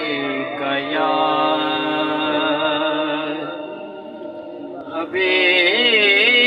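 A man's voice chanting unaccompanied salawat through a loudspeaker system, in long held notes. One phrase fades out about four seconds in, and a new, louder phrase with a wavering pitch begins about a second later.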